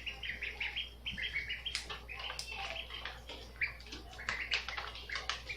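Young ducks peeping over and over in short, high calls, with a few sharp clicks among them.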